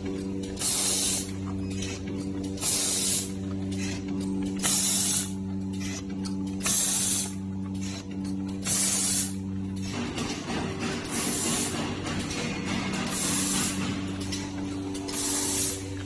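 Rotary eight-station pouch packing machine for laundry detergent running: bursts of air hiss come about every two seconds, one each machine cycle, over a steady machine hum with a low tone.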